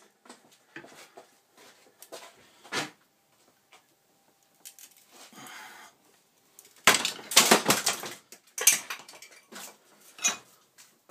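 Bench vise crushing a Black & Decker cordless screwdriver: scattered clicks and creaks as the handle is turned, then, about seven seconds in, a loud burst of cracking and clattering as the plastic body gives way and the tool springs out of the jaws, with another sharp crack shortly after.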